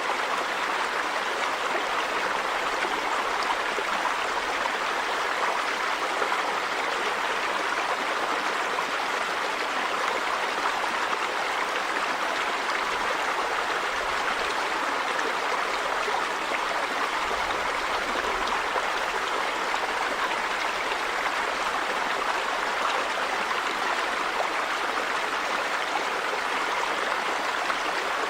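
Steady rushing of a river or stream flowing over rocks, an even wash of water noise with no pauses.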